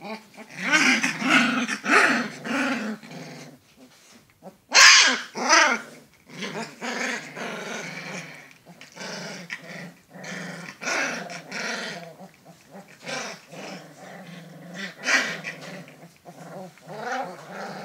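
Alaskan malamute puppies play-fighting, growling and giving short high yaps at each other in brief broken bursts, with one louder, higher cry about five seconds in.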